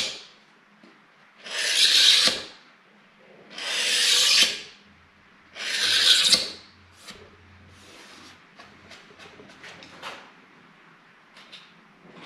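Hand file drawn along the edge of a laminated board: three long strokes about two seconds apart, then a few light, short scrapes.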